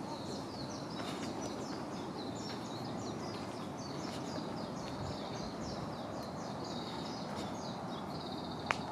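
A songbird singing one long, fast run of varied high notes that lasts about eight seconds, over a steady outdoor noise bed. A single sharp click comes near the end.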